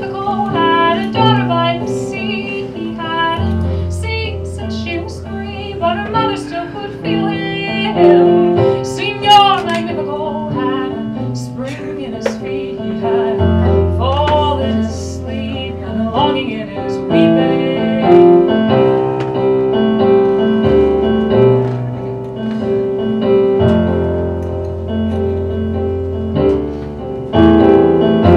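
Casio Privia digital piano playing a repeating chord accompaniment over long, held low bass notes, with a woman's voice sliding between notes without words in places.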